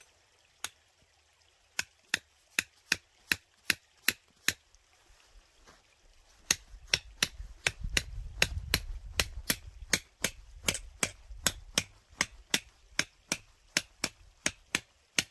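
Sharp, evenly spaced strikes of a hand tool, about two and a half a second, with a short pause partway through. A low rumble sits under them in the middle.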